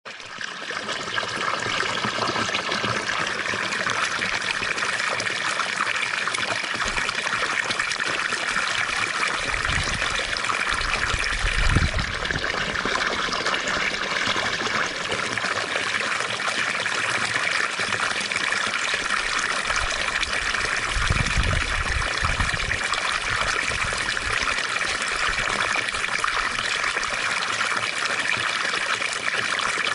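Water fountain running: a steady splashing and trickling of falling water, fading in over the first couple of seconds. Two brief low rumbles come through, at about ten to twelve seconds and again just after twenty seconds.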